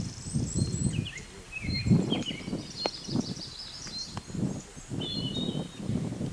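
Several small birds chirping and trilling, with many short high calls overlapping, over an irregular low rumbling noise.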